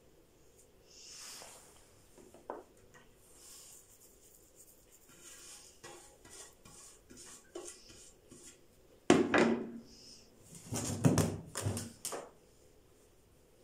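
Soft rustling of shredded kunafa pastry being spread and patted by hand in a round metal baking tray, then a run of loud knocks and clatters of dishware, a ceramic plate and the metal tray, about nine to twelve seconds in.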